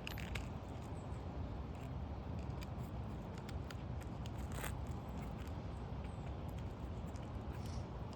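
Faint scattered scrapes and small clicks, one a little stronger just past the middle, over a steady low rumble.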